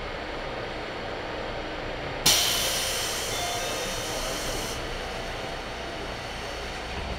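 Sudden burst of compressed air hissing from a JR 211 series electric train about two seconds in, fading away over the next two and a half seconds, over a steady low hum.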